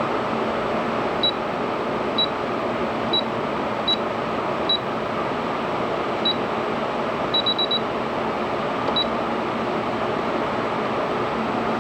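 Short, high electronic beeps from a sewing machine's control buttons, about ten at uneven spacing with a quick run of four past the middle, over a steady hum and whirr.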